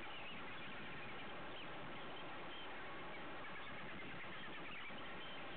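Steady sea noise of water washing around a small canoe, heard through a waterproof camera, with many faint, scattered high squeaks and chirps over it.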